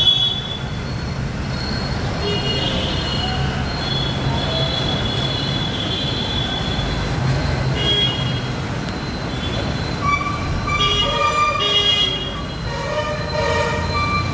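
Steady road-traffic rumble, with vehicle horns tooting several times in the second half.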